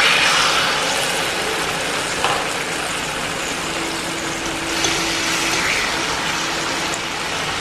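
Chicken breast fillets sizzling in hot oil in a nonstick frying pan. The sizzle is loudest at the start and settles to a steady level.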